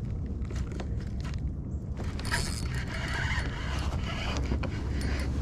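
Fishing reel being cranked, with mechanical clicking and creaking, over a steady low rumble.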